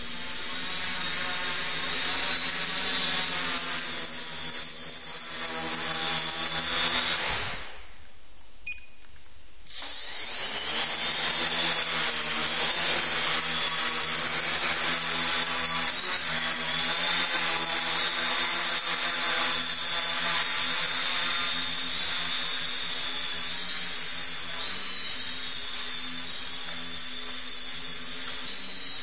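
Steady machine hum with a high, even whine, as from a running motor. It drops out for about two seconds about eight seconds in, then comes straight back. In the second half the higher part of the whine wavers up and down in pitch.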